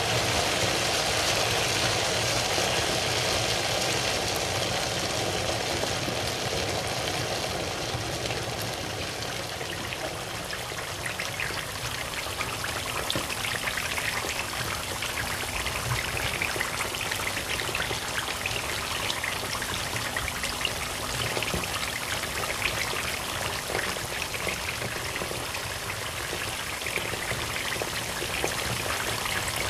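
Potato chunks frying in plenty of hot oil in a pan: a steady sizzle that turns into fine crackling bubbles after about ten seconds. This is the slow fry on medium heat that softens the potatoes for a Spanish omelette.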